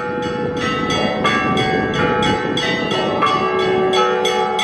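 Church bells ringing in a quick run of strikes at several pitches, about four or five a second, each one left ringing.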